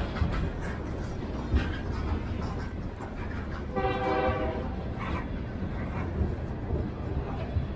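Freight train of empty open hopper cars rolling past, a steady rumble of wheels with scattered knocks over the rail. About four seconds in, a brief horn blast sounds.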